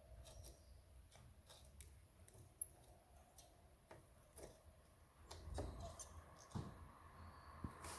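Near silence with faint, scattered small clicks and taps, a few slightly louder ones past the middle.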